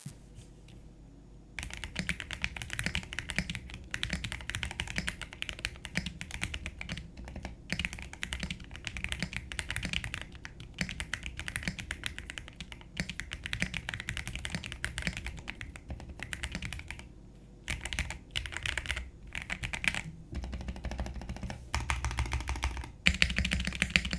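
Qwertykeys QK80 mechanical keyboard with Nixie switches being typed on quickly, a dense run of keystrokes starting about a second and a half in. About two-thirds through there is a brief pause, and the typing comes in shorter bursts near the end.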